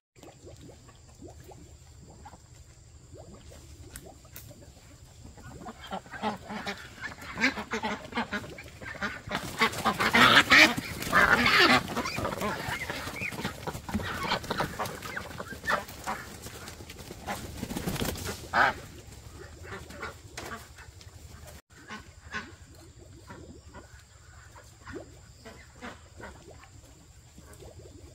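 Ducks quacking in a noisy flurry that builds about six seconds in, is loudest a few seconds later and dies away after about nineteen seconds, leaving scattered fainter calls.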